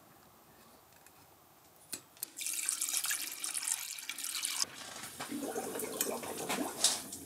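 Water running from a tap, starting about two and a half seconds in after a single click, with a lower, fuller splashing sound in the second half.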